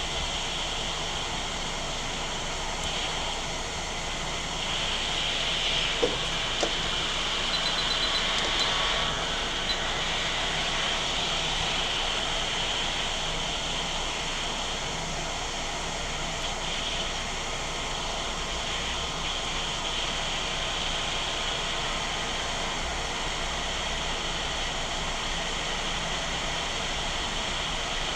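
Hot air rework station blowing a steady hiss of hot air, its airflow turned up, to heat solder on a laptop motherboard. A couple of light clicks about six seconds in.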